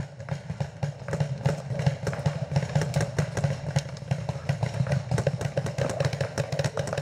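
Paintball markers firing in quick, uneven strings of shots from several players at once, over a steady low hum.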